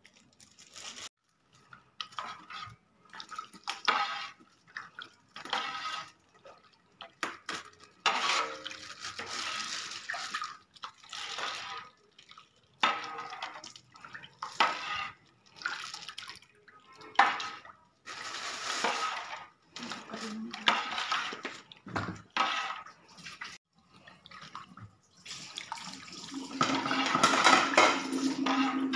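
Coconut milk sloshing in a large aluminium wok as it is stirred with a metal ladle, in irregular strokes with scrapes and light knocks of the ladle on the pan. Near the end the stirring becomes louder and steadier, and a low steady hum joins in.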